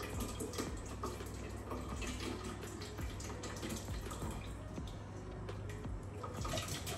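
Thick tomato sauce and meatballs sloshing and dripping as they are poured from a stainless steel Thermomix bowl into a serving dish, with scattered small wet knocks and plops.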